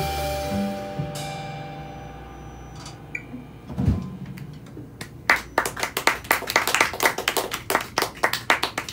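The final chord of a jazz trio, archtop electric guitar and upright bass, rings out and fades. A single low thump comes about four seconds in. From about five seconds a small audience claps.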